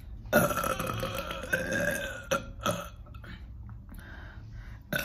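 A woman's long, loud burp lasting about two seconds, followed by a few short clicks.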